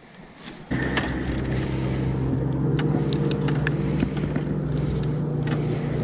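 A boat motor running at a steady pitch. It cuts in suddenly under a second in, with a few faint ticks over it.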